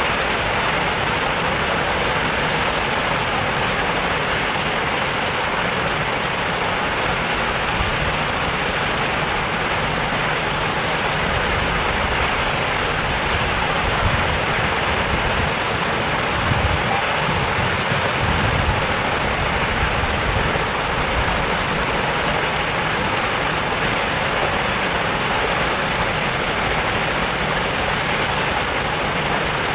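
Steady rushing noise, even across all pitches, with a few low rumbles about halfway through.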